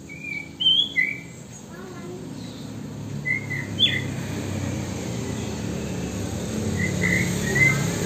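White-rumped shama giving short whistled chirps in small clusters, loudest about half a second in, with a few more notes around four seconds and near the end. A steady low hum runs underneath.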